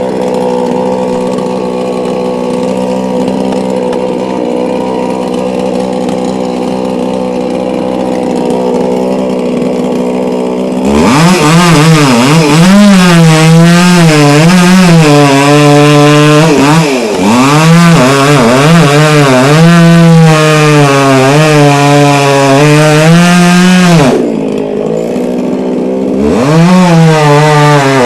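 Chainsaw idling steadily, then revved up hard about eleven seconds in. Its engine pitch rises and falls again and again as it is worked. It drops back to idle for a couple of seconds near the end, then revs up again.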